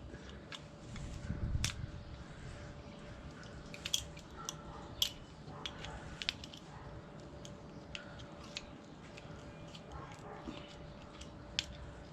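Scattered small clicks and knocks of fuel-line quick-disconnect adapter fittings being handled and tightened by hand, with a low thump about a second and a half in.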